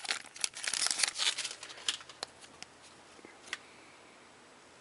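Hockey card pack's foil wrapper crinkling and cards being handled and flipped through: dense rustling for about a second and a half, then only a few light taps.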